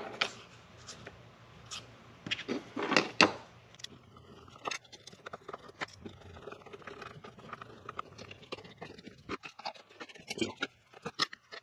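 Small parts clicking and scraping as they are handled and fitted onto the hub of a string trimmer head, with a few louder knocks about three seconds in and light ticking and scraping afterwards.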